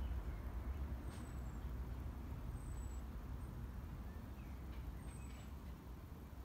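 Outdoor garden ambience: a steady low rumble with faint, thin, high-pitched calls, each a short falling note, coming every second or two.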